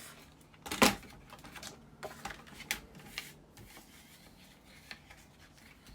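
Light clicks and taps of cardstock and a scoring tool being handled and lined up for a score line, with one louder click a little under a second in.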